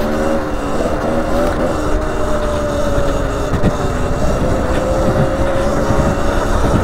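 Sur Ron Light Bee X electric dirt bike at speed: a steady electric motor and drivetrain whine that wavers slightly with the throttle, over wind and tyre rumble on the gravel track.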